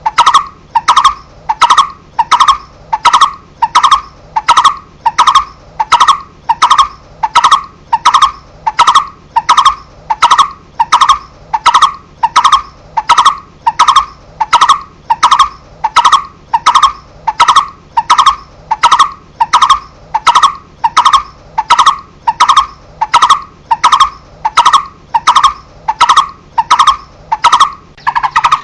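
Coppersmith barbet calling: a long, steady series of hollow single 'tuk' notes, evenly spaced at a little under two a second, without a break.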